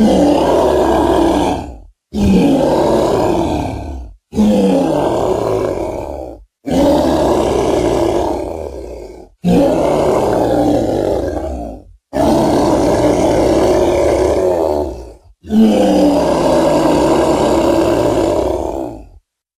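A series of seven deep, loud roars, each two to four seconds long, starting sharply with a dropping pitch. They are separated by short, complete silences, like clips cut one after another.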